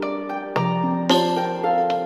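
Instrumental game music played back through a compact speaker and recorded by a microphone in the room: plucked notes with sharp starts over held tones, a bass note coming in about half a second in and a bright accent hit about a second in.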